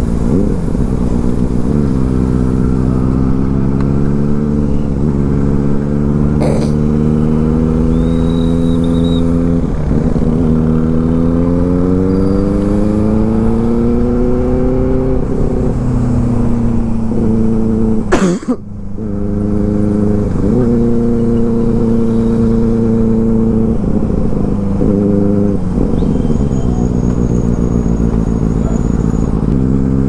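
Benelli TNT 600i inline-four motorcycle with an IXIL aftermarket exhaust, ridden under way. The engine note climbs and drops with throttle and gear changes several times. There is one short sharp crack about eighteen seconds in.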